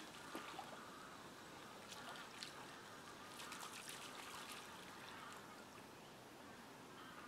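Faint trickling and splashing of water, in small clusters of little splashes about two seconds in and again around three to four seconds in, with faint distant water-bird calls behind.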